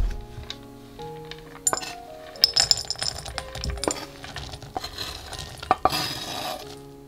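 Chopped dark chocolate pieces dropping into a glass bowl, clinking and clattering against the glass, with a denser pour of pieces clattering in near the end. Soft background music plays under it.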